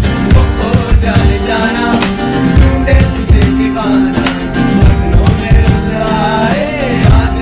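Music: an instrumental passage of a song, with guitar over a steady beat and a wavering melody line.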